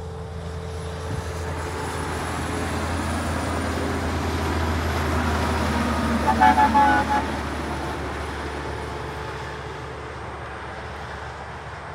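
A heavy truck pulling two trailers passes at highway speed. Its engine and tyre noise build to a peak about six seconds in and then fade. As it passes, a horn gives a quick series of short toots.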